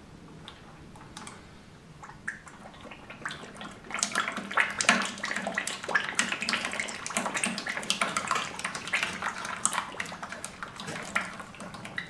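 Hydraulic oil pouring from a double-acting forklift cylinder's port into a bucket, trickling faintly at first and then splattering and crackling much more heavily from about four seconds in. The piston is forcing the oil out as the ram is drawn out.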